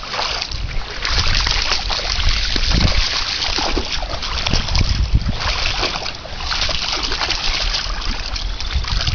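Shallow floodwater splashing and sloshing as a dog wades through it, in uneven swells of small splashes.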